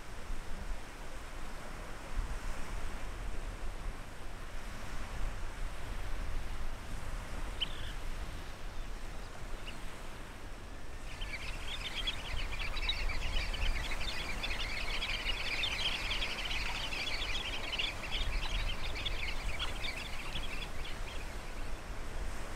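Steady low rumble of wind on the open shore. About halfway through, a dense, overlapping chatter of many high bird calls sets in and runs for around ten seconds before fading.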